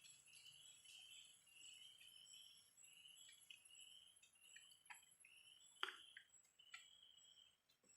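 Faint insects chirping: a run of short repeated chirps over a steady high-pitched trill, with a few sharp clicks about five and six seconds in.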